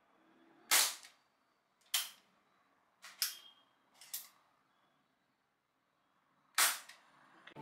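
Blanca air pistol being fired and cocked: three sharp shots, about a second in, about two seconds in and near the end, with two pairs of lighter clicks between them, the cocking lever being pulled back until it clicks and pushed forward again.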